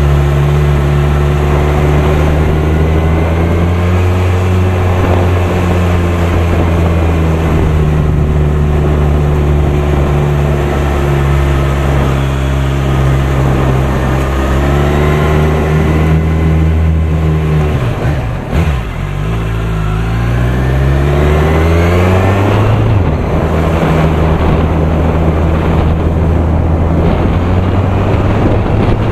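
Kawasaki Z1000SX inline-four engine running at low revs on the move, picked up by an SJ6 action camera's built-in microphone. About eighteen seconds in the engine note drops briefly, then climbs steadily in pitch as the bike accelerates before settling again.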